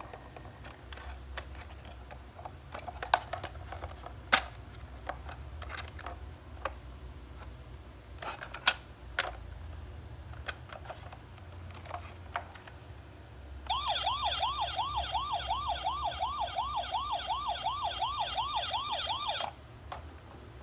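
Hard plastic toy police truck being handled, with sharp clicks and knocks, then about two thirds in its electronic toy siren sounds a fast warbling wail, about three sweeps a second, for some six seconds and cuts off suddenly.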